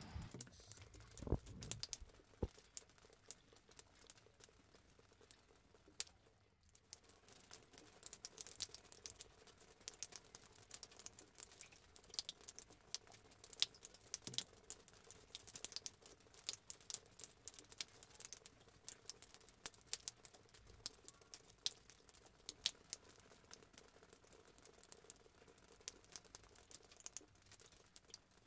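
Light, irregular pattering of water drips, many small ticks a second, over a faint steady hum. The sound drops out briefly about six seconds in.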